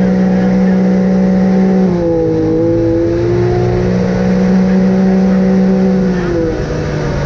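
Off-road vehicle engine running steadily under load, its pitch dropping about two seconds in and again near the end.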